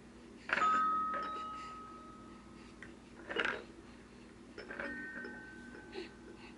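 A toy chime rings out about half a second in and fades over about two seconds. A short knock follows about three seconds in. A second, slightly higher ring starts near five seconds and lasts to near the end.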